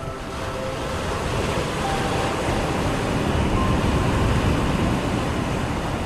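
Sea waves breaking and washing up a sandy beach in a foamy rush, the surf swelling to its loudest about four seconds in, then easing back.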